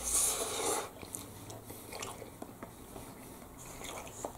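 A man chewing a mouthful of instant noodles, with faint soft mouth clicks, after a short breathy rush of air in the first second.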